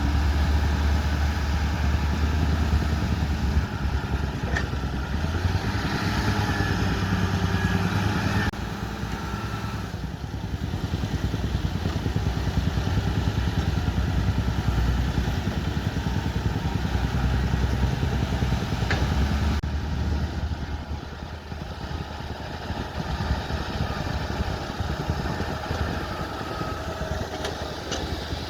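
Bulldozer's diesel engine running steadily, with a few short knocks. The sound changes abruptly twice, where separate clips are joined.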